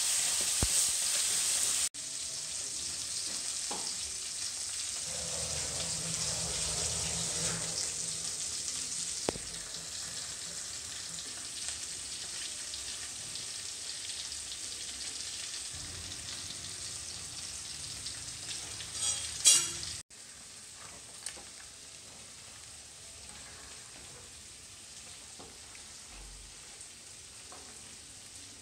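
A metal spoon scraping and clinking in a steel bowl of thick beef curry, over a steady hiss that drops abruptly twice. A quick run of sharp clinks, the loudest sound, comes about two-thirds of the way in.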